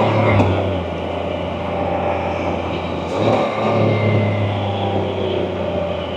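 Can-Am Spyder three-wheeled motorcycle engine running on the road over wind noise. The engine eases back about half a second in, then picks up again about three seconds in as the throttle is opened.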